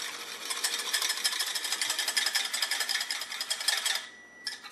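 Wire whisk beating an egg white in a small bowl: a rapid, even clatter of the wires against the bowl, pausing briefly about four seconds in and then starting again.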